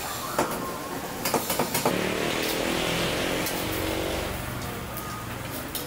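A metal spatula clicks and scrapes against a wok as egg noodles fry in oil. In the middle, a motor vehicle's engine passes close by, swelling and fading over about two seconds.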